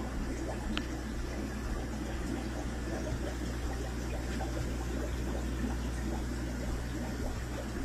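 Steady low hum with a light wash of bubbling noise from an aquarium air pump and sponge filter running, with one faint click about a second in.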